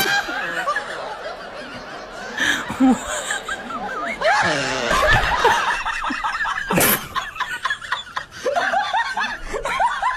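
Laughter and chuckling voices, with a sharp click or tap about two-thirds of the way through.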